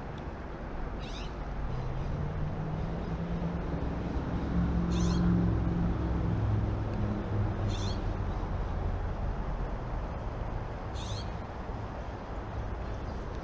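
A bird giving four short, high, stuttering calls about three seconds apart, over the low drone of a distant engine that swells about two seconds in, peaks around five seconds and slowly fades, like a vehicle passing.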